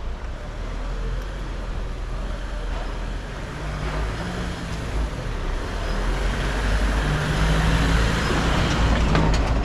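A delivery van drives slowly up a narrow street, its engine and tyre noise growing louder over the last few seconds as it draws close and passes.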